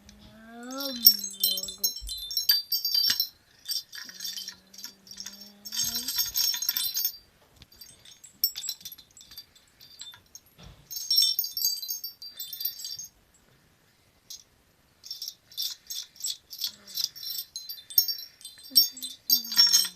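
Bar chimes (mark tree) swept and struck by hand in repeated runs of high metallic jingling, with short pauses between runs. A child's held, babbling voice sounds over the first two seconds, again about four to six seconds in, and near the end.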